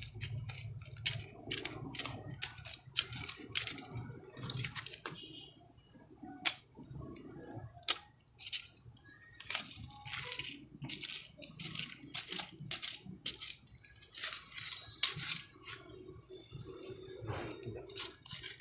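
Soil being dug and scraped away around an ube (purple yam) tuber with a hand tool: irregular short scraping strokes, with one sharper knock about six and a half seconds in.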